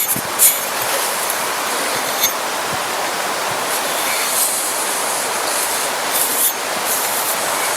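A metal file rasping in strokes along the steel edge of an axe, truing an uneven bevel to one steady angle, over a steady rushing noise.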